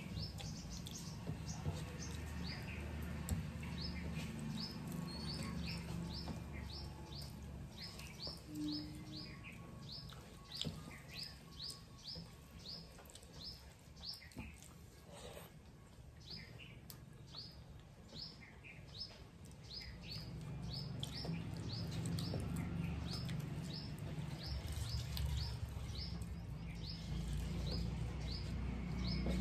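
A bird chirping over and over, short falling chirps about two a second, over a low steady hum.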